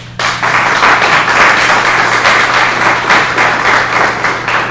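Audience applauding, starting suddenly and keeping up a dense, even clapping.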